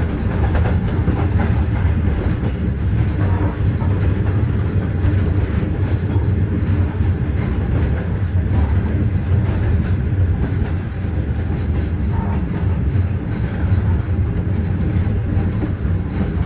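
A train running along the track: a steady low rumble of wheels on rails, with a few sharp clicks in the first couple of seconds.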